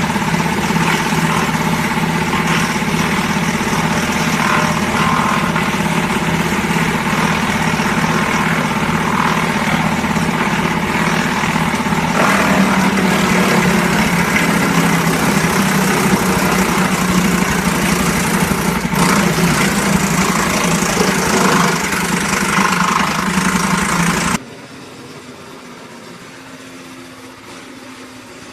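Small mobile wood chipper's engine running steadily at a loud, even level, its note shifting about halfway through. Near the end the sound drops abruptly to a much quieter level.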